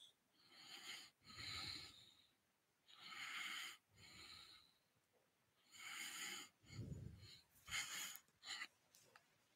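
Faint breathing close to a microphone, a series of short breaths about a second or so apart with silences between.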